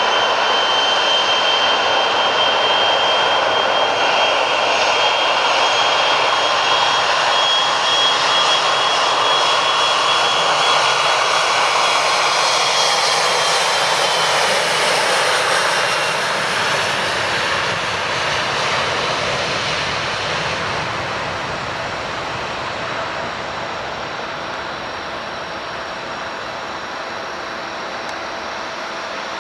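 Jet airliner engines running, a loud roar with a high steady whine; the whine fades out around the middle and the roar then grows quieter as the aircraft draws away.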